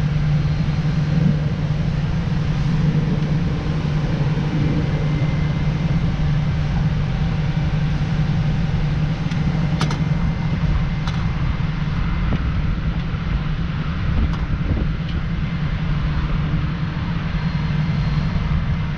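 Steady low mechanical drone of heavy machinery, one unchanging hum over a low rumble, with a few light clicks around the middle.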